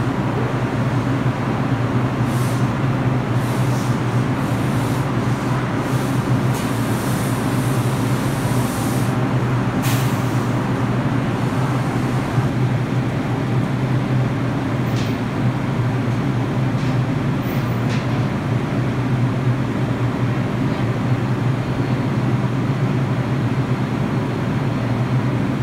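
A New York City subway train standing at the platform, its equipment keeping up a loud, steady hum. A few short, high hisses come in the first half, the sharpest about ten seconds in.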